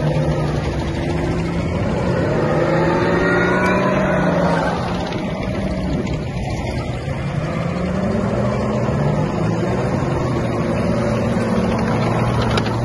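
M113 armoured personnel carrier's Detroit Diesel two-stroke V6 engine running under way, its pitch rising and falling slowly with engine speed.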